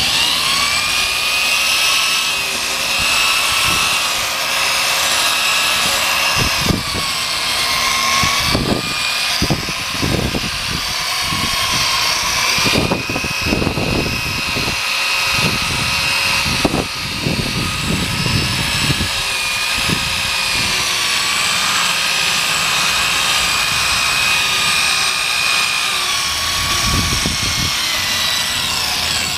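Electric drill running steadily with a sandpaper disc on a backing pad, sanding a cloudy plastic headlight lens. Its whine sags slightly in pitch now and then, with scattered scuffs and knocks of the pad against the lens.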